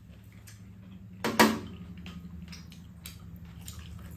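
Meal-table sounds of spoons and chopsticks clinking against ceramic bowls: one louder clatter about a second and a half in, then a few faint taps, over a steady low hum.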